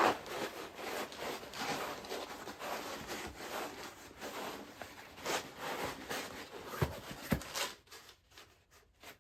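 Thin foam sleeping mat being rolled up and pushed into a frameless fabric backpack: continuous rustling and rubbing of foam against nylon with small crinkles, a couple of soft knocks around seven seconds in, then dying away.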